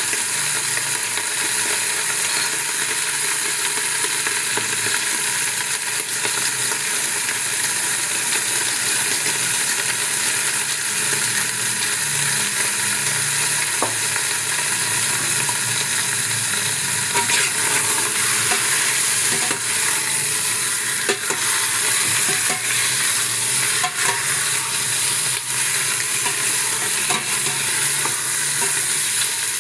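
Food frying in oil in a pan, sizzling steadily, with a few light knocks of stirring now and then.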